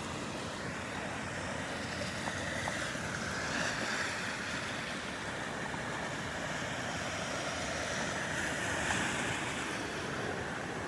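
Small ocean waves breaking and washing up the beach, a steady rush of surf that swells twice as waves come in.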